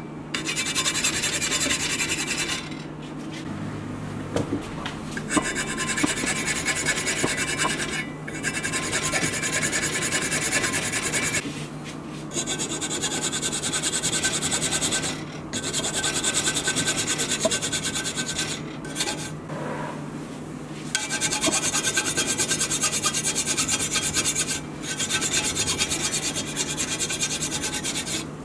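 A flat steel hand file rasping back and forth across a wooden knife handle and its rivets. The filing comes in runs of a few seconds with short pauses between them.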